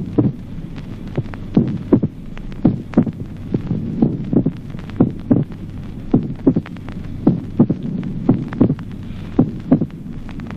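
Heart auscultation recording in slow atrial fibrillation: sharp heart sounds come in clusters at an irregular rhythm, with a mitral opening snap following the second heart sound after a short interval, the sign of mitral stenosis. A steady low hum runs beneath.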